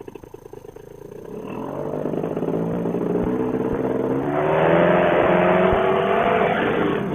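Paramotor trike engine and propeller throttling up: quiet at first, then rising steadily in pitch and loudness from about a second and a half in, running at high power from about four and a half seconds in.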